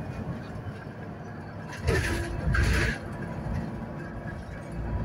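Solaris Urbino 12 city bus under way, its DAF diesel engine giving a steady low rumble, with a louder rush of noise about two seconds in that lasts about a second.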